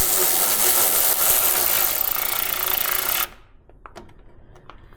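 Cordless power driver running a bolt into the plastic threads of a truck's headlight housing, going steadily for about three seconds and stopping abruptly. A few faint clicks follow.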